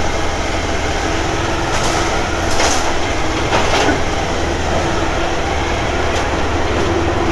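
Motorcycle engine running at low speed inside the enclosed shuttle carriage, a steady hum with a few brief clunks about two to four seconds in.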